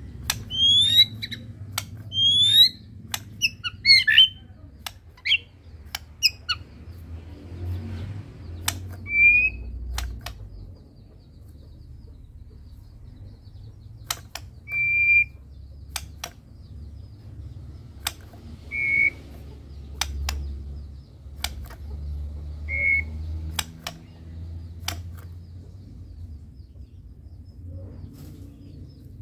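White-rumped shama (murai batu) singing: a quick series of rising whistled notes in the first few seconds, then single short whistles every few seconds, with sharp clicks in between.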